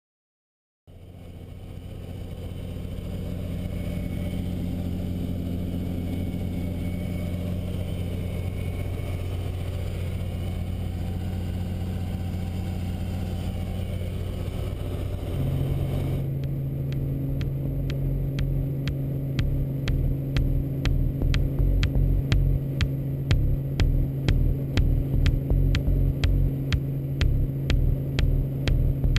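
Robinson R44 helicopter heard from inside the cabin, its piston engine and rotor running steadily on the ground. About halfway through the pitch steps up and a regular rotor beat sets in, louder, as the helicopter lifts off and climbs.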